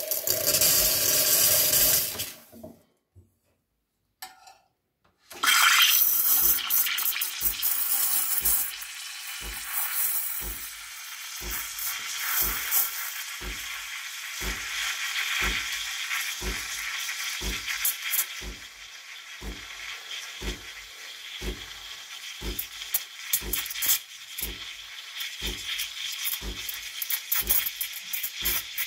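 DeLonghi Dedica EC685 steam wand purging with a short blast of steam into an empty metal jug, then after a few seconds' pause steaming milk in a small pitcher. The steaming hiss is loudest and brightest for its first few seconds, then settles to a steady hiss, with a regular low thud about every two-thirds of a second.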